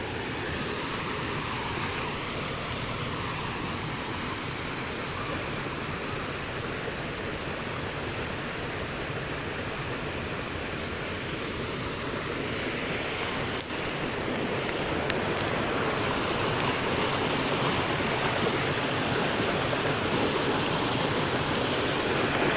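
Steady rushing of water that grows a little louder about halfway through.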